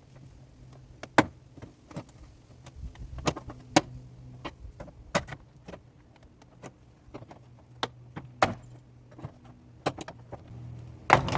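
Irregular sharp plastic clicks and knocks as a car's interior door trim panel is worked loose by hand and tool, with a few louder snaps among them, over a faint low steady hum.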